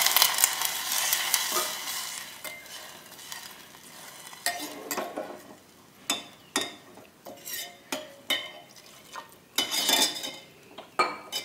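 Water hissing and sizzling as it meets the hot ghee and roasted vermicelli, fading over the first few seconds. Then a steel spoon stirs the pot, with a run of short scrapes and clinks against the enamel.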